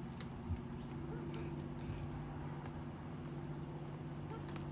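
Scattered light clicks and ticks at irregular intervals over a steady low hum.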